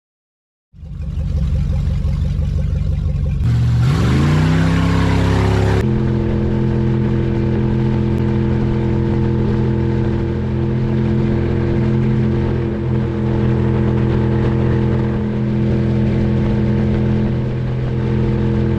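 Boat engine running: it cuts in suddenly, rises in pitch as the throttle is opened, then holds a steady pitch at speed.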